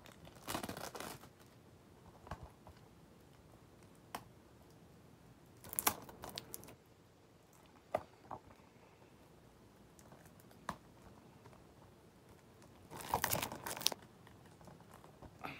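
Plastic shrink wrap on a Blu-ray case being slit with a dime and peeled away. It crinkles and tears in short scattered bursts with sharp clicks, the longest burst near the end.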